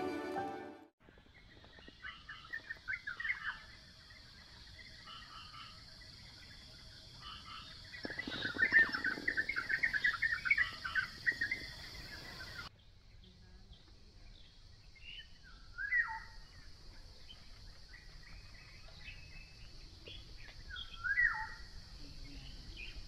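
Birds chirping and calling in a rural morning over a steady high-pitched hiss, after music fades out in the first second. The sound cuts abruptly about halfway through to a quieter stretch with separate bird calls, two of them standing out later on.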